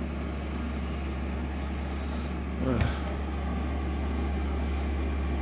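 Air conditioner running in sleep mode on inverter power: a steady low hum with fan noise. A brief knock with a falling pitch about halfway through.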